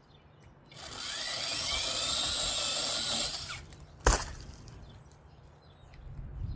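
Chainsaw cutting through a tree branch for about three seconds, its pitch wavering under load, then stopping. About half a second later comes a single sharp knock, the loudest moment.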